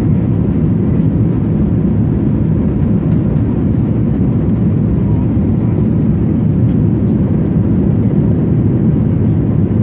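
Steady low rumble of engine and airflow noise inside the passenger cabin of an Airbus airliner in flight on approach to landing.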